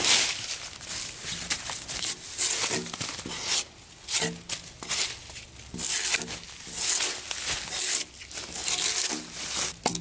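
Drawknife peeling bark off a freshly felled log: repeated scraping pull strokes as strips of bark tear away from the wood.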